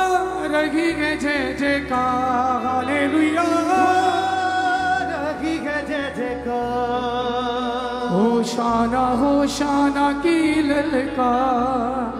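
Hindi Christian worship song: a choir and lead singers singing with band accompaniment.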